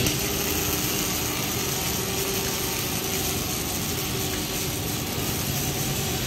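Steady industrial noise from a dual-torch automatic pulsed gas metal arc pipe-welding system at work: a constant machine hum with a continuous hiss from the welding arcs.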